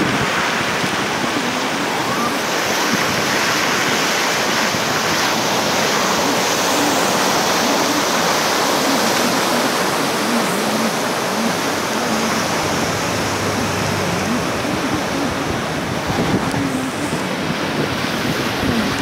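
Rushing floodwater of an overflowing creek, a steady unbroken rush of water.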